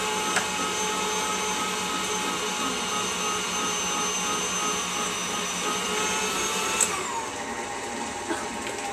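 Electric tilt-head stand mixer running steadily with a motor whine, beating brownie batter in its steel bowl. About seven seconds in there is a click and the whine falls in pitch as the mixer drops to a slower speed.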